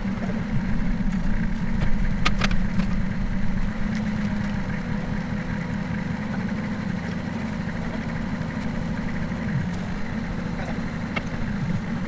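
Tractor engine running steadily while the front loader carries a load of pine logs, with a couple of knocks about two seconds in.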